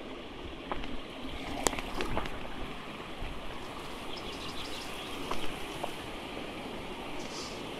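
River water rushing steadily over rocks and small rapids, with a few sharp clicks and knocks on top, the loudest about two seconds in.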